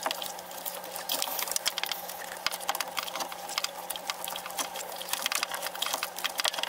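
Tape being unrolled and wrapped around a wiring harness: a rapid, irregular crackling of the tape peeling off the roll, over a steady low hum.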